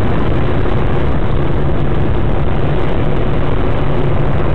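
Steady vehicle engine and road noise, an even rumble with a constant low hum.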